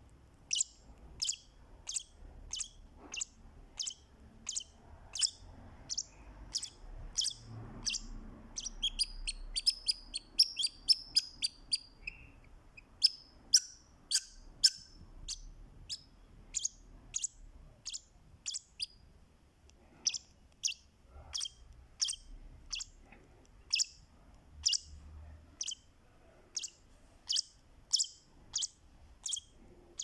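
Fischer's lovebird calling: a long regular series of short, sharp, high chirps, about two a second, breaking into a quicker flurry about a third of the way in.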